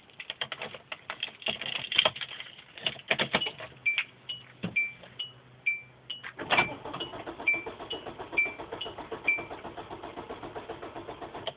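Clicks and rattles of the ignition key and switches, a car's warning chime beeping about twice a second, then the starter motor cranking the engine in a steady pulsing rhythm for about five seconds without it catching, until the key is released: the car will not start.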